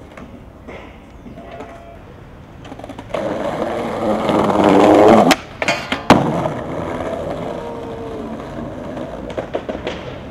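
Skateboard grinding loudly along a concrete ledge for about two seconds, then stopping abruptly, followed by two sharp clacks of the board hitting the ground about a second later. The wheels then roll more quietly over the paving tiles.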